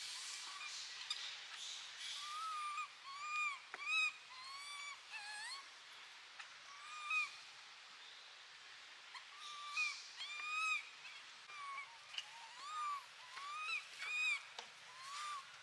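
Baby long-tailed macaque crying for its mother to nurse: a string of short, high, arching coos, one after another, with a lull of a few seconds in the middle.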